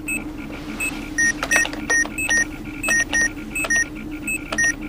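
Computer interface beeping as a passcode is keyed in: short electronic beeps at two alternating pitches, a couple a second and coming thicker from about a second in, over a steady low hum.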